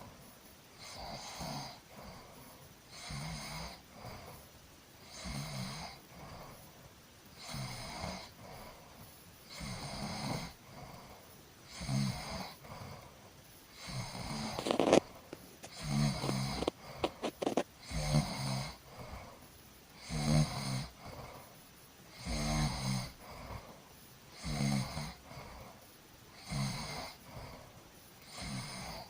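A sleeping person snoring steadily, with a low, rattling snore on each breath about every two seconds. About halfway through a sudden, louder sound breaks the rhythm, followed by a few quick clicks, and then the snoring carries on as before.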